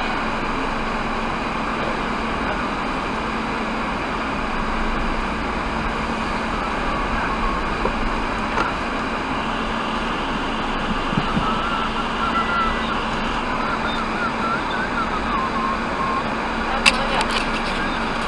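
Steady in-cabin hum and hiss of a Maruti Baleno RS (1.0-litre three-cylinder turbo petrol) running at low speed, with a single sharp click about a second before the end.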